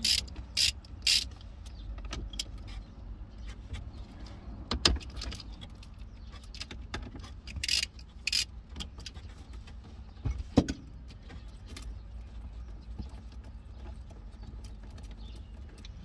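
Socket ratchet and metal hand tools clicking and clinking while bolts on a car's console cool box are undone: irregular sharp clicks with a few louder knocks, over a low steady rumble.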